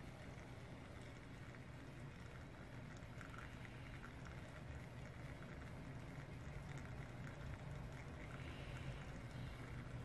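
Technivorm Moccamaster drip coffee brewer heating water and brewing: a faint steady bubbling hiss with a low hum and light scattered crackles.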